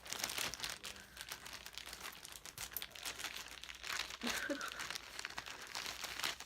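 Crinkly packaging being crumpled and torn open by hand, a continuous crackling rustle.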